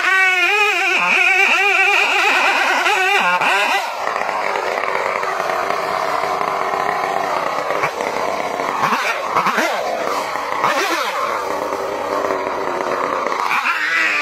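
Stihl two-stroke chainsaw cutting into a large tree trunk, its engine pitch wavering under the load. The saw then runs rougher, its revs dropping and rising several times, and near the end it is cutting again with the same wavering pitch.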